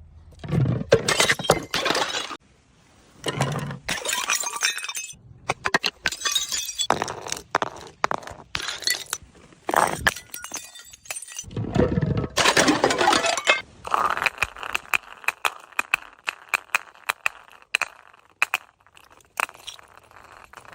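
Glass bottles shattering one after another, each smash a sharp crash followed by a spray of breaking glass. Towards the end the crashes give way to lighter clinking and tinkling of glass pieces.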